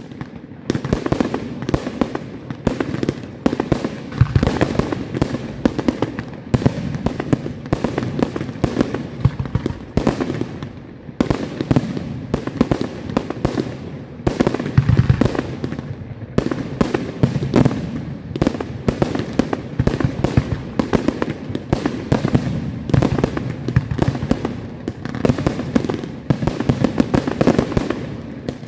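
Aerial fireworks display: a rapid, unbroken string of shell bursts and launch reports, several a second. Heavier booms come about four seconds in and again around fifteen seconds.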